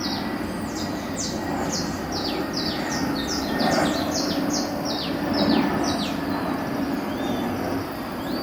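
A bird singing a rapid series of high, downward-sliding notes, about two or three a second, which stops about six seconds in; a few soft chirps follow near the end. A steady low hum lies underneath.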